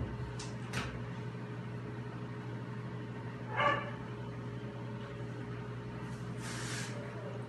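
A puppy gives one short, high yip while playing with a feather wand toy, over a steady background hum. A couple of light clicks come in the first second and a soft rustling swish near the end.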